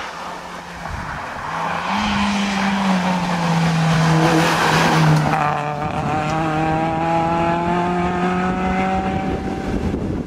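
Suzuki Swift GTi rally car's four-cylinder engine at full throttle as the car comes up the road and passes close by, loudest about four to five seconds in. It then pulls away with the engine note climbing steadily as it accelerates.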